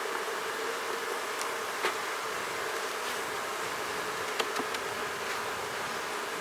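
Honeybees humming steadily from an open hive, with a couple of light clicks from the frames being worked about two seconds in and again near the middle.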